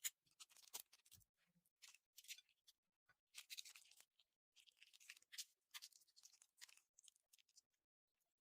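Slime being squished and worked by hand: faint crackling and clicking pops that come in short irregular patches, with a sharper click right at the start.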